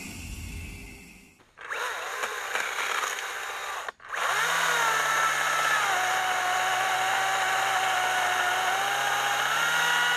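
Makita XCU03Z 36-volt brushless cordless chainsaw cutting into a stump, with a steady electric whine. The pitch sinks as the chain bites into the wood and the motor takes the load, then rises again near the end as the load comes off.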